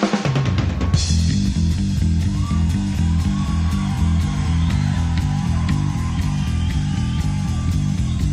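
Drums stop about a second in, leaving an upright bass playing a steady, repeating bass line on its own.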